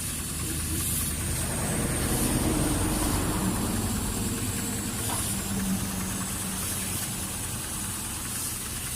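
An engine running steadily at idle with a steady hiss over it.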